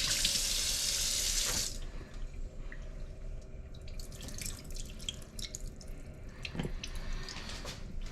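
Kitchen sink tap running full, then shut off abruptly about two seconds in. Scattered light clinks and knocks follow as things are handled at the sink.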